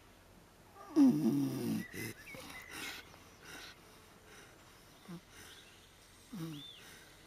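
Sleeping kunekune pigs snoring. There is one loud, falling snore about a second in, then quieter snores every second or two.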